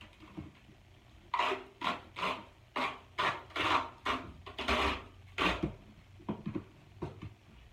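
Pink roller bandage being pulled off its roll in about ten short, quick pulls, then a few fainter clicks near the end.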